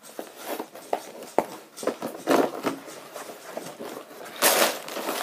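Cardboard Lego set box being handled and opened: irregular scraping, knocking and crinkling, with the loudest burst of rustling about four and a half seconds in.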